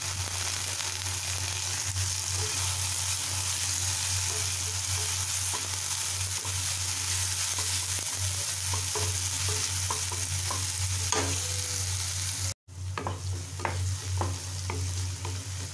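Chopped onion and green capsicum sizzling in hot oil in a non-stick kadai over a high gas flame, while a wooden spatula stirs and scrapes the pan. The spatula taps come more often in the second half, and the sound cuts out for an instant near the end.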